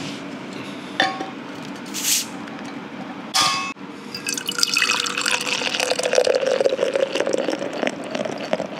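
Beer poured from a glass bottle into a stainless insulated tumbler, splashing and fizzing, with a falling tone as it runs. Before the pour there is a sharp click about a second in and two short hissing sounds.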